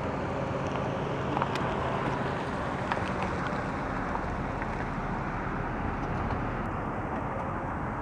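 Steady outdoor background noise: an even hiss with a faint low hum underneath and a few faint clicks.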